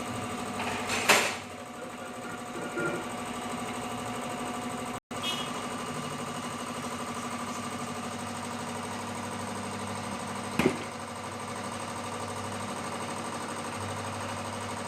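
A machine motor running steadily, with two sharp metallic knocks, one about a second in and another about ten seconds later.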